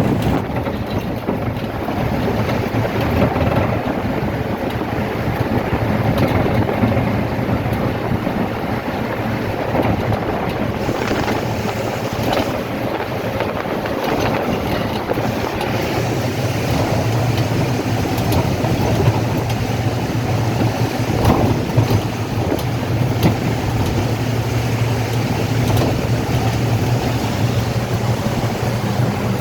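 Godavari river water rushing steadily, with wind buffeting the microphone and a steady low hum underneath.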